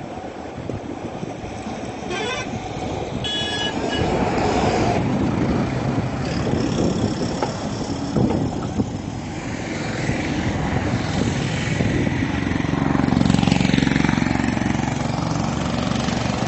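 Road traffic passing on a bridge: engines and tyres of buses, trucks and motorbikes. A short horn sounds about three seconds in, and a louder vehicle passes near the end.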